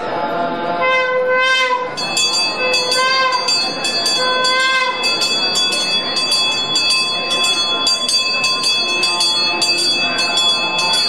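Temple bell rung rapidly, several strikes a second with a steady bright ring, starting about two seconds in and going on without a break. In the first five seconds three short pitched notes, each rising and falling in pitch, sound alongside it.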